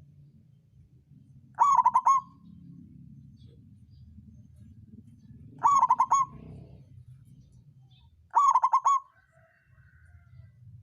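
Zebra dove (perkutut) of the 'songgo ratu' voice type cooing: three short calls a few seconds apart, each a quick run of clipped, pulsing coo notes.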